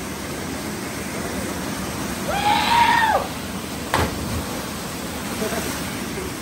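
Steady rush of a small waterfall pouring into a rock pool. About two and a half seconds in, a person yells loudly for under a second, and about a second later comes a single sharp smack, like a jumper hitting the water.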